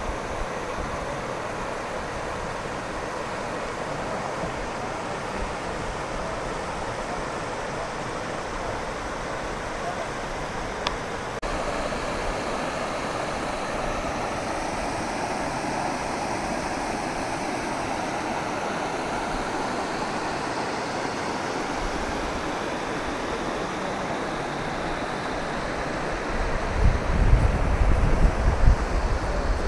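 Rocky mountain stream rushing steadily over stones and small cascades. Near the end, low, uneven rumbling buffets on the microphone come over the water sound.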